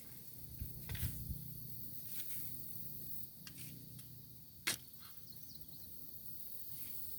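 Shovel digging in garden soil: a few dull thuds about a second in, then scattered scrapes and clicks of the blade, the sharpest about four and a half seconds in.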